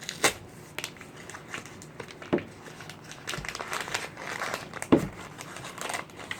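Cornstarch and its box being handled: irregular crinkling and crackling, with a few sharp clicks, the loudest about five seconds in.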